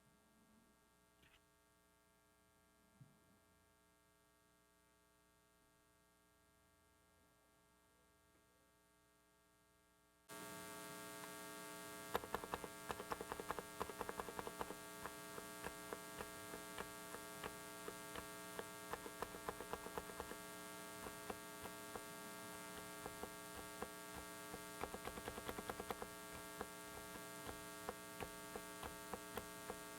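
Typing on a Dareu mechanical keyboard: quick runs of key-switch clicks and clacks over a loud steady electrical hum from a faulty microphone. The hum switches on about a third of the way in, and the typing starts soon after.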